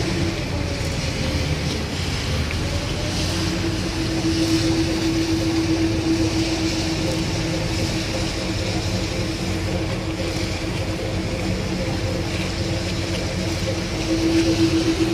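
Boat engine running steadily, a constant droning hum over a rushing noise; the hum grows stronger about four seconds in and louder again near the end.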